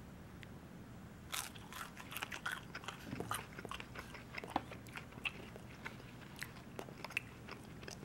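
Close-up biting and chewing of crispy breaded chicken fries (pretzel-crumb coated): a first bite about a second and a half in, then a run of small irregular crunches as the crisp breading is chewed.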